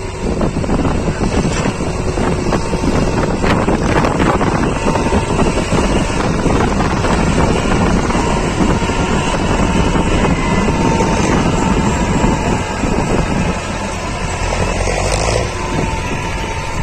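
Massey Ferguson 260 tractor's three-cylinder diesel engine running steadily under load while pulling a heavily loaded soil trolley, with wind buffeting the microphone.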